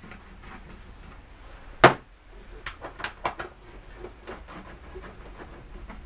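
Hand-tool work on the 10 mm bolts of a ZF 5HP18 gearbox's oil pan: one sharp knock about two seconds in, then a run of lighter, irregular clicks and taps as the socket works the loosened bolts out.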